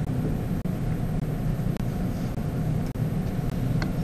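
Steady low rumbling hum of room background noise, with a couple of faint clicks near the end.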